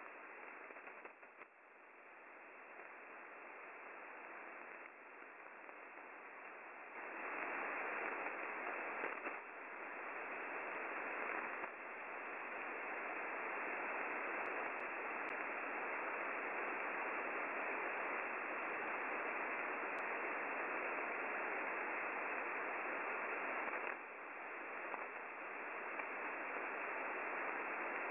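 Shortwave receiver static from an online WebSDR: a steady, band-limited hiss with no buzzer tones in it, the sign that UVB-76 (the Buzzer) is off the air. The hiss gets louder about seven seconds in and dips briefly near the end.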